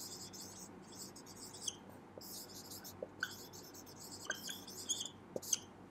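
Marker pen writing on a whiteboard: a run of short, faint scratchy strokes with a few small squeaks.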